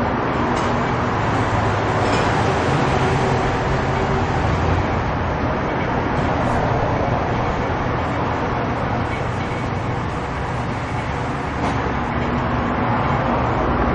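A vehicle engine running steadily, with a constant whooshing noise over a low hum.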